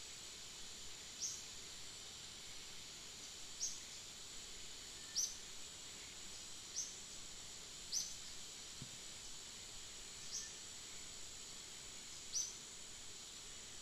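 Faint outdoor ambience: a steady high insect drone, with a short high chirp that falls in pitch, heard seven times at gaps of one to two seconds.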